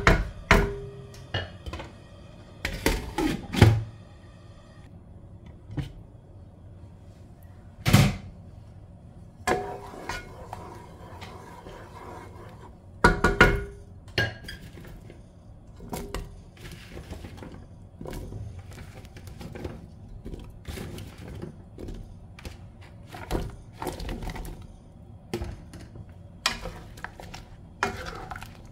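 Kitchen clatter: scattered knocks and thuds of a wooden spatula and cookware against a nonstick pan, with one loud knock about eight seconds in and short clusters of taps around it.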